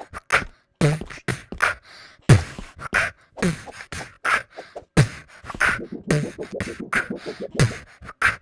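A rhythmic percussive beat: deep falling thumps about every second and a half, with quick sharp clicks and snaps between them.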